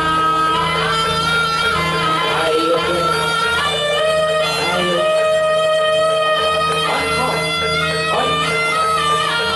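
Music from a jaranan troupe's band: a held melody line that bends in pitch, over a steady low drone.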